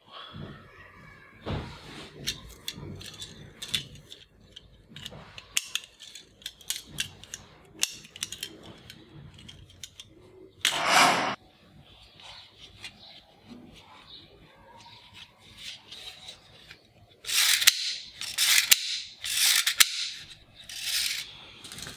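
Toy handcuffs clicking and their chain rattling as they are handled and taken off, many small clicks. Near the end, several louder scraping clacks as a plastic toy rifle magazine is handled and opened.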